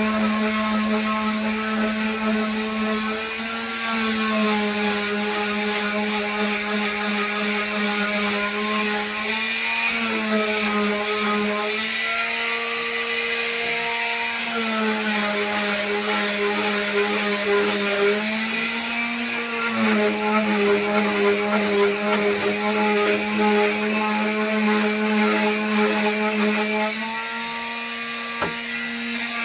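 Corded electric sander running with a 150-grit pad against a wooden box, a steady motor hum that shifts up and down in pitch several times.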